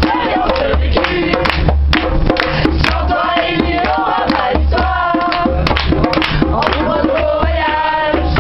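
Music with a steady drum beat and voices singing a melody.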